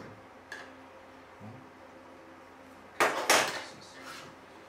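Metal hard-drive trays and adapter handled and set down on a wooden table: a light click and a soft knock, then two sharp metallic clacks about three seconds in.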